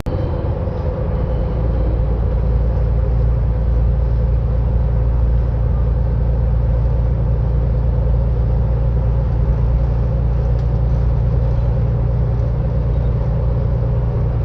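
Union Pacific freight train running close by: a loud, steady low rumble with a steady hum above it, unchanging throughout.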